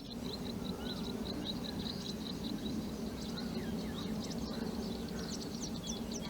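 Birds calling: a short, high chip note repeated about three times a second, joined near the end by a quick run of higher, downward-sliding notes, over a steady low background hum.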